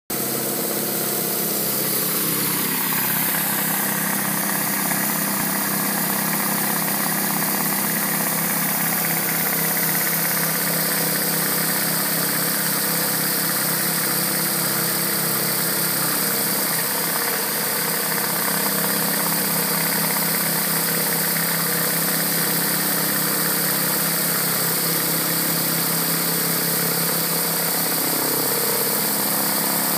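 Gas-engine pressure washer running steadily, with the hiss of high-pressure water spraying from a rotary surface cleaner onto roof tiles.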